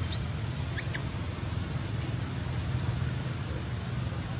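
Steady low rumble of outdoor background noise, with a few faint, brief high squeaks or chirps in the first second.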